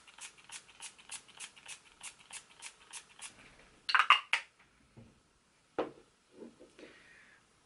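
Pump-spray bottle of face setting spray misting in quick spritzes, about three a second, for some three seconds. Then a few louder clicks about four seconds in, and a knock near six seconds.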